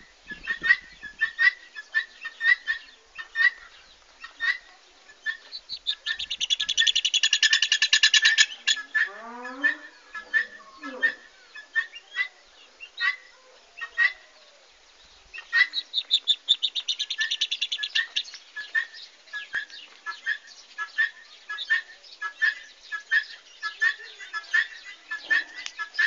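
Helmeted guineafowl calling: a steady run of harsh single notes, two or three a second, broken twice by a long, fast rattling chatter.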